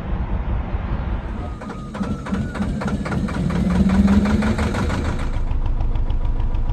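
Narrowboat's diesel engine running with a steady, regular knock, getting louder about four seconds in as the throttle control is opened.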